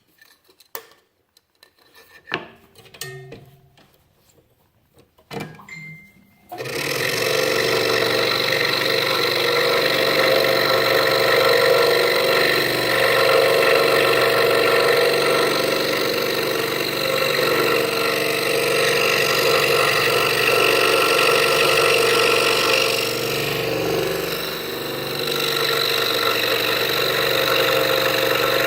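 A few light clicks and knocks, then about six seconds in a scroll saw switches on and runs steadily. Its level dips briefly a little before the end.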